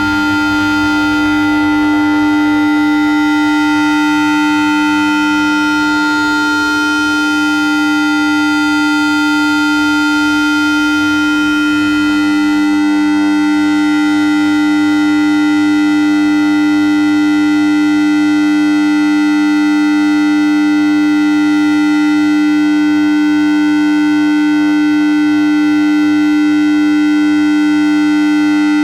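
A weird electronic sound made of steady tones at about 315 Hz and 1.3 kHz, with many fainter higher tones stacked above them. It drones on loud and unchanging, with no rise or fall in pitch.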